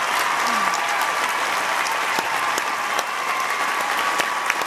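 Large audience applauding steadily, with individual hand claps close by standing out from the mass of clapping.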